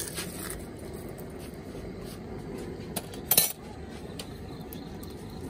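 Metal spoon clinking and scraping against a steel bowl as food is mixed: a few scattered clinks, with a louder cluster of clatter about three and a half seconds in, over steady low background noise.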